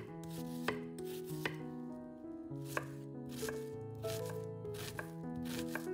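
Knife chopping on a cutting board: a handful of single sharp strokes, irregularly spaced, over soft background music with held notes.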